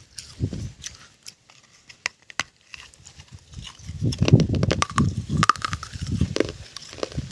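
Close-miked crunchy biting and chewing: sharp crackling crunches at first, then from about halfway a run of louder, rhythmic chewing.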